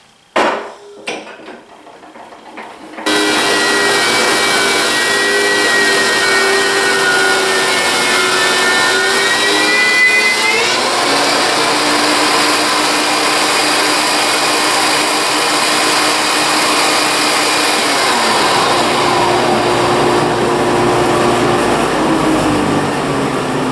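Thickness planer with a Shelix helical cutterhead running as a red oak board feeds through it; a few knocks, then the loud, steady machine noise starts suddenly about three seconds in. Its pitch rises about ten seconds in and shifts again later as the load on the cutterhead changes.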